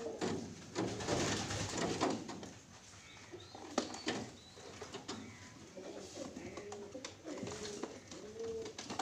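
Domestic pigeons cooing over and over, a run of short rising-and-falling coos that grows denser in the second half. A rustle of handling in the first two seconds and a couple of sharp clicks about four seconds in.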